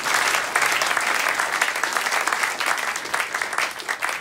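Concert audience applauding: many hands clapping in a dense, steady patter that begins to thin out and die down near the end.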